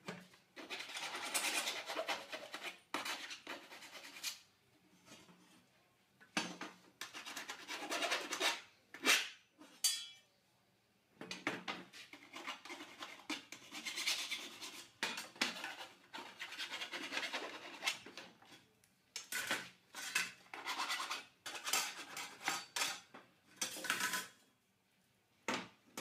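A hand file rasping over the cut edges of steel cable tray in runs of repeated strokes with short pauses, deburring the cuts. There is a brief metallic clink partway through.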